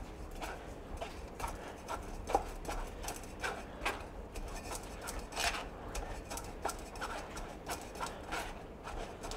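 Hard-boiled egg yolk being rubbed and pressed through a fine stainless-steel mesh sieve by hand: soft, irregular scraping against the mesh with small ticks.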